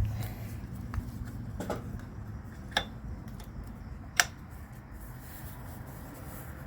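A few sharp metal clicks and taps from hand tools and the brake caliper pin as the pin is worked out of the motorcycle's rear brake caliper, over a low steady hum.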